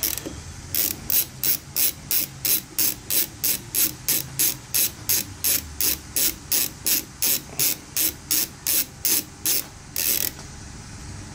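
Hand ratchet wrench clicking in an even rhythm, about three clicks a second, as it is swung back and forth on a carburetor fastener. The clicking stops near the end after one last click.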